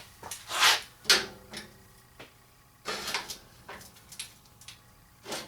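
Handling noises as parts are shifted on a bench: a short scrape about half a second in, a sharp click about a second in, another scrape around three seconds in and a last one near the end.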